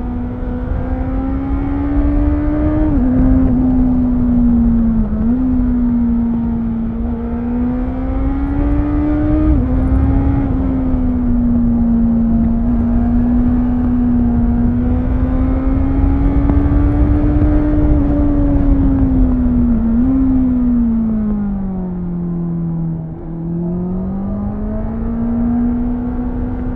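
2018 Honda CBR650F inline-four engine heard onboard while riding. Its note rises and falls with the throttle, steps up suddenly in pitch several times at gear changes, and sinks low about three-quarters of the way through before climbing again. Wind rushes over the microphone throughout.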